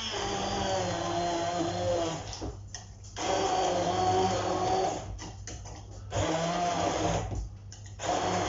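Hand-held stick blender running in the jug in several bursts with short pauses between, blitzing chopped fresh tomatoes, onion, pepper and coriander into a chunky salsa.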